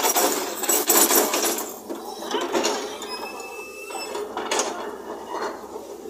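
Stone and brick rubble clattering and crashing as an excavator bucket scoops and drops it, loudest in the first two seconds with further bursts of falling stones later, over the steady hum of the excavator's engine.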